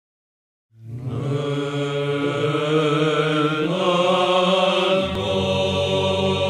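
Men's choir chanting Byzantine psalmody in Greek, in the plagal second mode, beginning about a second in: a melody line over a held low drone (ison), which shifts pitch about five seconds in.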